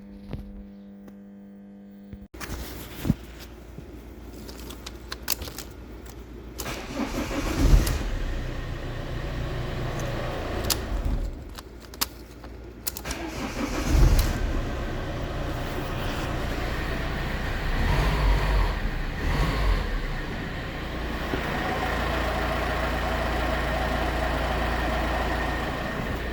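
Fiat car engine cranking and starting, running briefly, then going quiet and starting again about halfway through before settling into a steady idle, with a key rattling in the ignition. It is the sign that the car now starts on its newly programmed key, with the immobiliser no longer blocking it.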